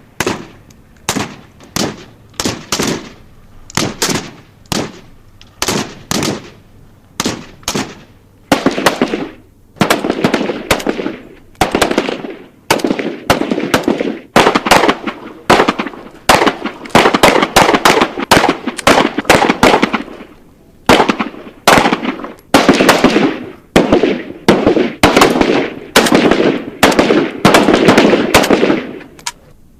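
Military firearm gunfire: single shots about once a second, each with a short echoing tail, then from about eight seconds in, automatic bursts of roughly a second each with short pauses between them.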